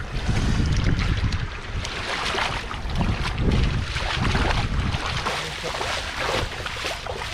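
Water and mud splashing and sloshing in irregular strokes, as hands and feet work through a flooded rice field, with wind rumbling on the microphone.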